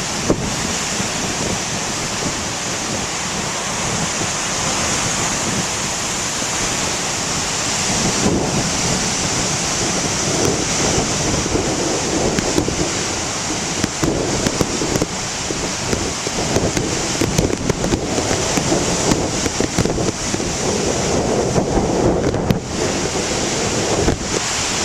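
Heavy ocean surf breaking and rolling in a steady roar that swells and eases, with wind buffeting the microphone.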